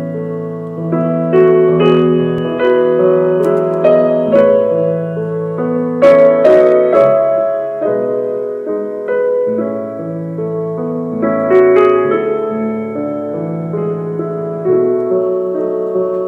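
Slow instrumental background music led by piano, with held chords that change every second or two.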